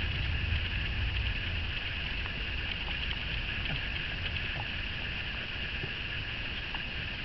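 Steady outdoor background: a low rumble of wind on the microphone under a constant high-pitched hiss, with a few faint ticks.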